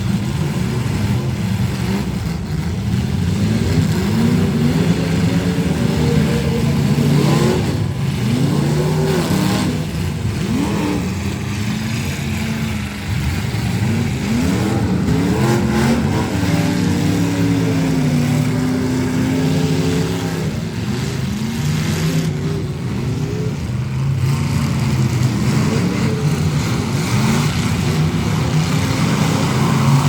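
Engines of several full-size demolition derby cars revving hard together, their pitches rising and falling over and over.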